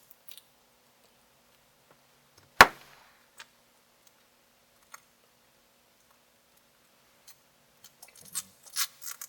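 Sharp clicks and snaps of cracked iPad digitizer glass being pried off with a metal pick. There is one loud snap about two and a half seconds in, a few faint ticks, then a cluster of crackling clicks near the end.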